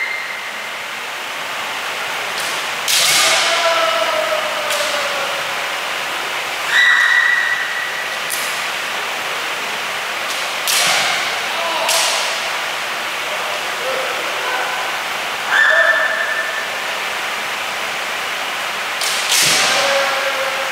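Kendo sparring: sharp cracks of bamboo shinai strikes and stamps on the wooden floor, each bout with a drawn-out, high-pitched kiai shout, about every four seconds over a steady background hiss.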